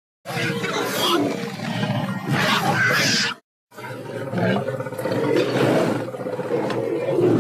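Indoraptor creature roars and snarls from a film sound-effect library, built from layered Chihuahua snarls, cougar, lion and pig screams with a dental drill. Two separate roars, split by a short dead silence about three and a half seconds in; the second holds a steady pitched tone through its middle.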